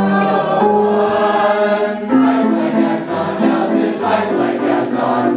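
Background music of choral singing: a chord held for about two seconds, then a line of shorter notes moving in steps.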